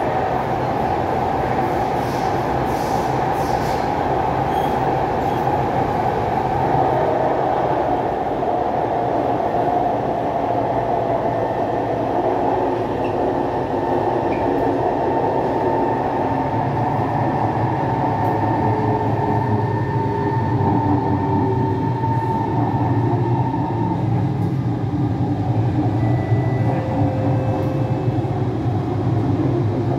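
Kawasaki C151 metro train running in a tunnel, heard from inside a motor car: a steady rumble and rail noise with the traction motors' strong whine, several tones drifting slowly in pitch and the low rumble growing heavier in the second half.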